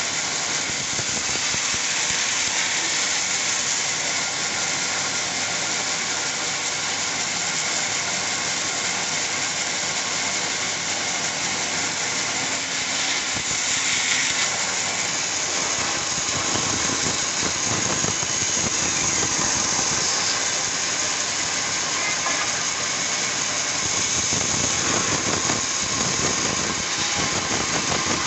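A machine running steadily with a loud, even noise, growing a little louder about halfway through.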